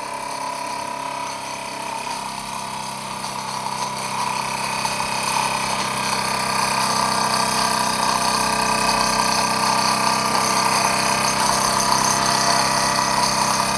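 Model steam engine with a flywheel running steadily on steam, an even mechanical purr with a haze of hiss, growing slightly louder about a third of the way in.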